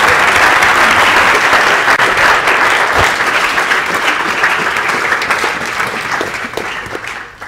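Audience applauding in a lecture hall, steady dense clapping that thins out and fades near the end.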